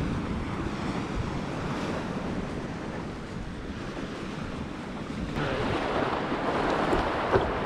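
Wind noise on the microphone over breaking surf. About five seconds in it changes to nearer splashing and lapping water around an inflatable paddleboard, with a sharp knock near the end.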